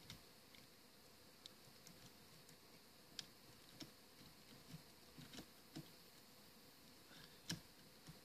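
Faint, scattered clicks and taps of hard plastic toy parts being handled as a part is pressed into the chest of a Transformers Masterpiece Star Saber figure, with one louder click near the end as it snaps into place.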